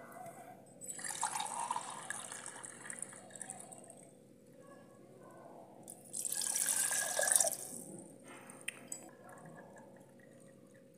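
Water poured into an empty clay pot (kujja) in two separate pours, each a splashing rush lasting two to three seconds. The second pour is louder.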